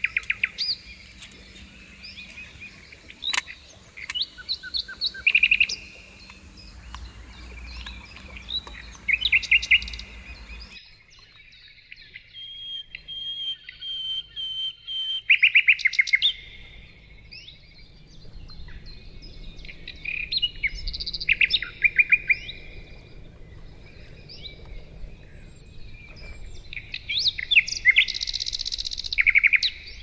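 Songbirds singing: short trilled phrases and whistled notes repeating every few seconds over a low steady outdoor background. One sharp click about three seconds in.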